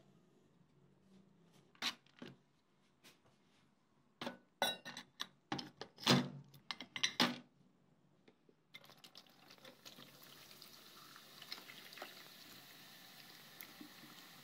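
Metal fan parts knocking and clinking against each other and a plastic tub as they are set down, a quick run of sharp knocks in the middle. Then, from about nine seconds in, liquid pouring steadily from a bottle over the parts in the tub.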